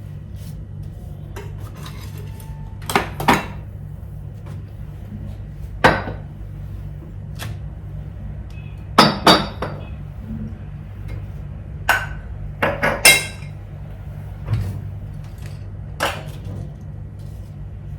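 Household items clinking and knocking as they are picked up and set down, about ten sharp hits with small pauses between them, over a steady low hum.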